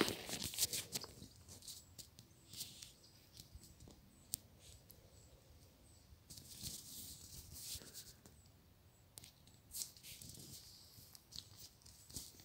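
Faint, intermittent rustling and crackling with scattered small clicks, in soft patches every few seconds rather than a steady sound.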